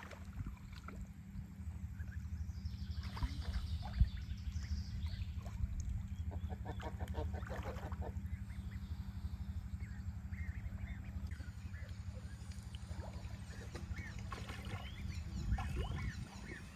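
Ducks quacking in several short runs of calls over a steady low rumble of water churning up at a pond aerator.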